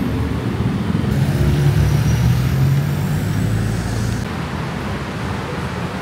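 Street traffic noise, with a vehicle engine's low hum standing out from about one to four seconds in.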